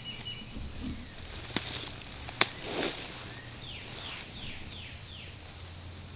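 Woodland ambience: a steady high insect buzz, two sharp clicks about a second and a half and two and a half seconds in, the second the loudest, and a songbird's run of about five quick falling notes near the middle.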